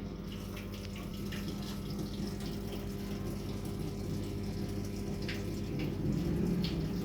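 Water running and splashing into a single-tub washing machine's drum, with a steady low hum underneath. It grows a little louder toward the end.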